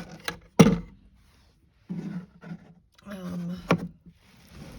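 Handling of a Singer Featherweight carrying case being unlatched and opened: a few latch clicks, then a sharp knock about half a second in, rustling, and another sharp knock a little before the end.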